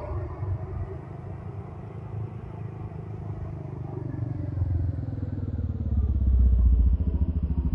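A motor scooter approaches along an asphalt road over a low traffic rumble. Its engine and tyre noise grow steadily louder and peak near the end as it passes close by.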